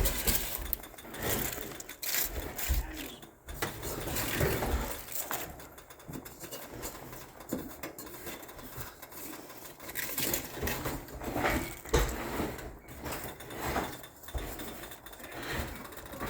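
Irregular rustling, scraping and knocking as cabbage is put into a pot of broth and worked in.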